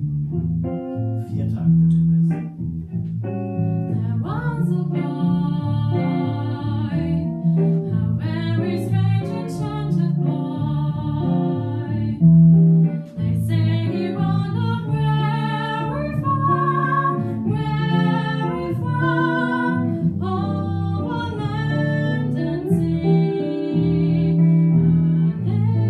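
Small jazz ensemble playing a slow ballad: a plucked guitar and bass line under a wavering melody voice, sung or played.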